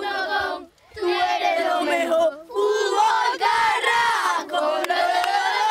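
A group of boys yelling and cheering together, their many voices overlapping, breaking off briefly twice.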